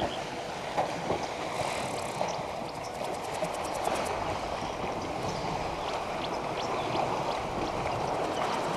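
Elephants wading and bathing in a waterhole: a steady wash of sloshing water with scattered small splashes, and short high chirps over it.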